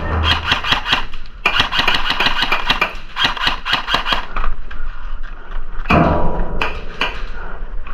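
Airsoft electric guns firing full-auto: rapid strings of shots in about four bursts of a second or so each, with a lull in the middle.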